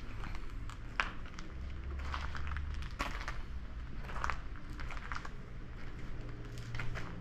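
Footsteps on stone paving, a scuff roughly once a second as someone walks, over a low steady rumble.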